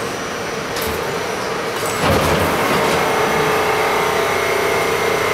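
Steady running hum of an R68 subway car's equipment with a held tone. It gets suddenly louder about two seconds in, when a steady whine joins it.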